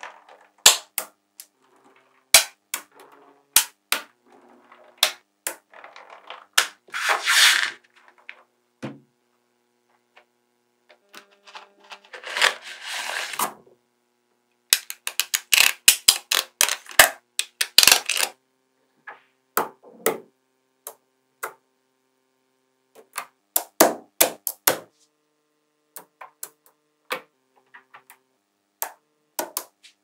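Small magnetic balls snapping together with sharp clicks, singly and in quick clusters. Twice a longer clattering run is heard as a handful of balls is pushed or rolled together.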